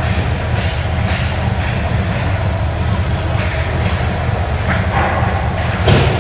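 A steady low rumble with hockey skate blades scraping the ice now and then; the loudest scrape comes near the end.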